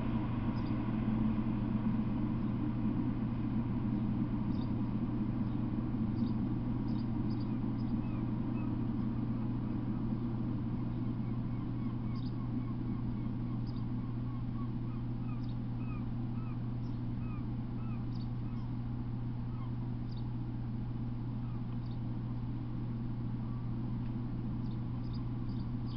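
Birds chirping in short, repeated calls over a steady low hum, with a fading rumble in the first couple of seconds.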